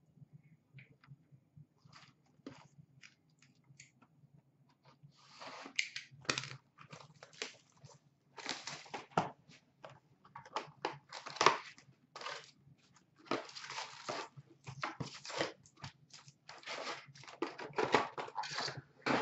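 A sealed box of hockey trading cards being torn open and its foil-wrapped packs handled: irregular tearing, crinkling and rustling, sparse at first and getting busier about five seconds in.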